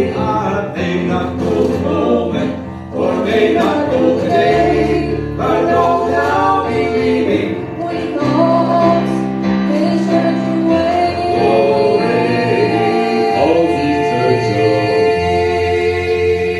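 Gospel song with choir-style singing and accompaniment playing its ending, settling into a long held final chord over the last few seconds.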